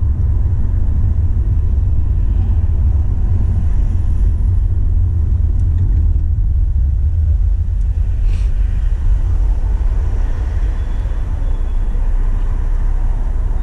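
Steady low rumble of a car driving along a road: engine and tyre noise heard from the moving car.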